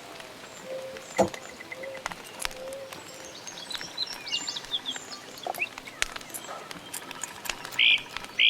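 Wild birds chirping and twittering over the faint crackle and ticking of a small campfire, with one sharp crack about a second in. Near the end a bird gives two loud, short calls about half a second apart.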